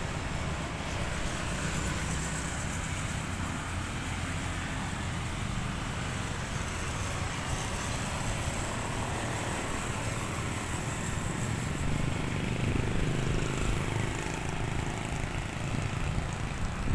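Steady street traffic noise from cars and motorbikes on the road.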